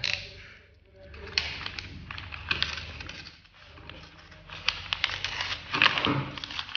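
Kraft-paper mailer crinkling and crackling as it is handled and slit open with a utility knife, in irregular bursts of scratchy crackles, the loudest near the end.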